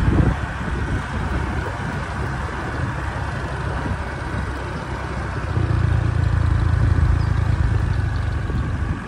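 Motor vehicle engine running steadily under road and wind noise while travelling, with a low hum that swells louder about halfway through and eases off near the end.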